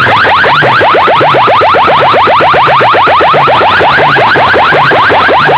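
Electronic siren-like effect blasted through a competition DJ sound system: a fast train of short rising chirps, about nine a second, over a low pulsing bass, very loud throughout.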